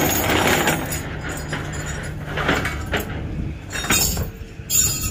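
Steel tow chain rattling and clinking in several short bursts as it is handled and hooked to the old car, over a low steady rumble.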